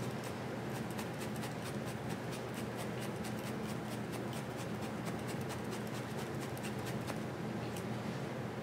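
Felting pen tool with two barbed needles stabbing rapidly and evenly into loose wool, a quick steady run of faint scratchy pokes as wool fluff is felted onto a needle-felted owl's body.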